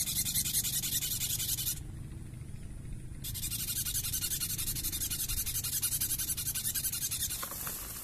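Styrofoam rubbed against a drinking glass in quick scratchy squeaks, a bird-trapper's lure that imitates the distress call of a caught bird to draw in sunbirds. The squeaking breaks off about two seconds in, starts again a second or so later, and stops shortly before the end.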